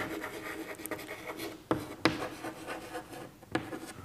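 Chalk scratching across a blackboard as words are written, with a few sharp taps as the chalk strikes the board.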